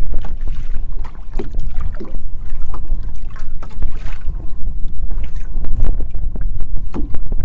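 Strong wind buffeting the microphone in a low, continuous rumble, with choppy water slapping the boat's hull in irregular sharp knocks.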